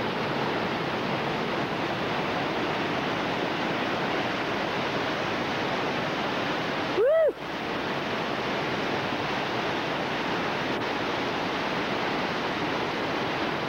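Steady rush of whitewater from a 20-foot waterfall and the rapids below it. About halfway through, a brief loud tone that rises and then falls in pitch cuts over the water for a moment.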